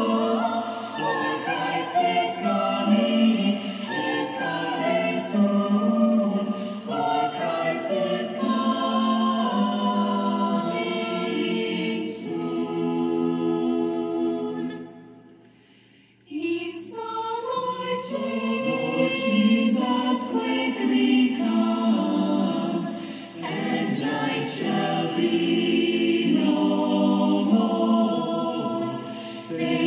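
A school choir singing, played back from a cassette recording. About halfway through, the singing dies away for a second or so, then the choir comes in again suddenly.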